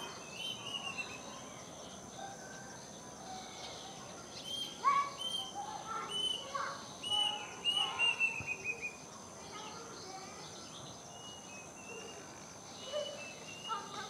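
Kedasih, a Cacomantis cuckoo, singing: a series of clear whistled notes, ending in a quick run that falls slightly in pitch, with a few fainter notes near the end.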